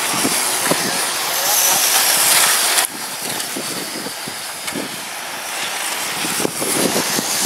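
Electric radio-controlled oval racing trucks with 17.5-turn brushless motors running laps, a steady high hiss of motors and tyres. The level drops sharply about three seconds in and then builds again.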